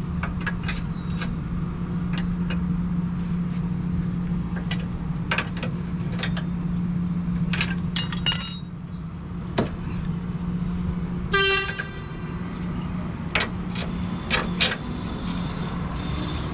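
Scattered metallic clicks and clinks as the new rear shock's lower eye and mounting bolt are wiggled into line with the mount, over a steady low hum. A short pitched toot sounds once, about eleven seconds in.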